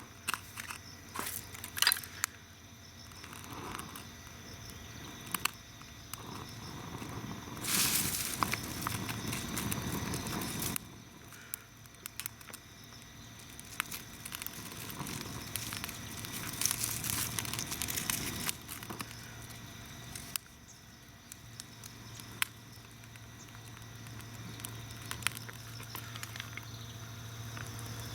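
Small campfire of hemp-twine tinder, dry leaves and cedar kindling being lit: crackling and rustling with scattered sharp clicks, and a louder rushing hiss lasting about three seconds from around eight seconds in.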